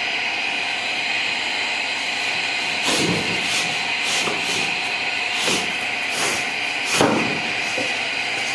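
A steady hiss runs throughout. Over it come a handful of knocks and thumps from a new refrigerator and its cardboard packaging being handled and pulled off, clustered in the middle of the stretch.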